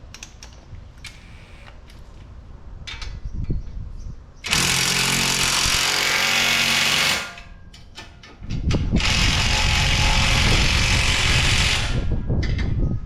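Impact wrench driving a suspension nut home in two runs: a short spin about four and a half seconds in, then a longer hammering run from about eight and a half seconds to twelve. Light clicks of a socket being handled come before.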